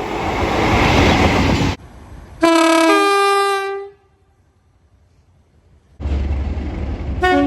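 Rumble and rail noise of a passing train, cut off abruptly. Then comes a train horn blast lasting about a second and a half; its chord steps to a different pitch partway through before it dies away. After about two seconds of near quiet, another train's rumble starts, with a short horn toot near the end.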